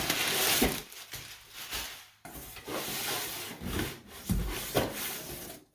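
Packing paper rustling and scraping against a cardboard shipping box as it is pulled out, with a few dull knocks.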